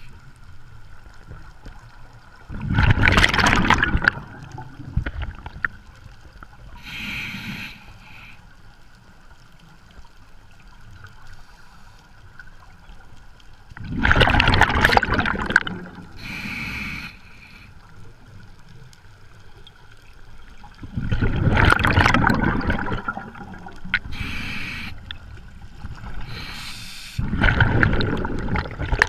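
Scuba diver breathing through a regulator underwater: four loud gurgling bursts of exhaled bubbles, each lasting a second or two, with a shorter, quieter hiss of inhalation a couple of seconds after each.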